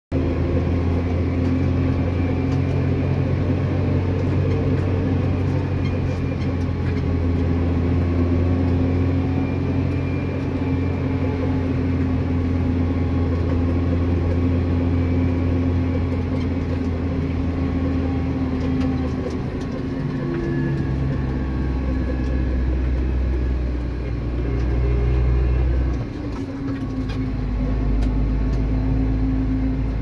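New Holland T7050 tractor's six-cylinder diesel engine heard from inside the cab as a steady low drone while the tractor drives across a stubble field. The engine note drops lower about two-thirds of the way through and again near the end.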